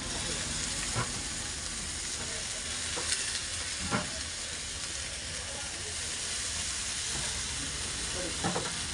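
Vegetable noodles and sauce sizzling steadily in a hot iron wok, with a few short knocks spaced through it.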